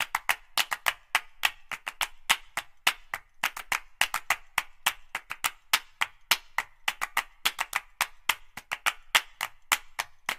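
Background percussion track of dry, quick clicks, about five a second in an uneven rhythm, with no melody.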